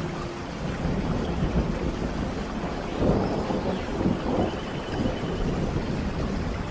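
Steady rain with thunder rumbling, the rumble swelling about three seconds in.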